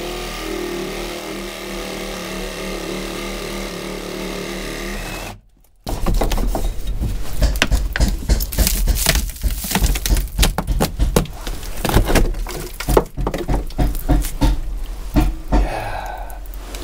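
A cordless reciprocating saw runs steadily, cutting into a wooden boat frame, and stops abruptly about five seconds in. Then comes a long run of irregular sharp knocks and cracks as the old frame and knee are worked loose.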